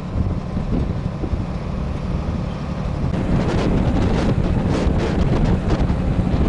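Open-air truck driving, its engine and road noise a steady low rumble, with wind buffeting the microphone. The buffeting grows stronger and gustier about halfway through.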